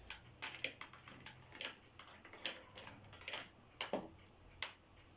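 Irregular hard clicks and knocks, about eight spread unevenly, from a 1998 Electrolux Power System Z1740 upright vacuum cleaner being handled and readied before it is switched on.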